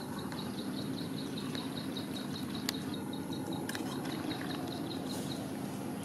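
Rapid, evenly paced high chirping from a small animal, about six chirps a second, stopping near the end, over a steady low background noise. A few sharp clicks cut in about midway.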